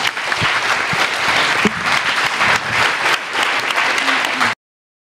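An audience applauding with dense, steady clapping that cuts off abruptly into silence near the end.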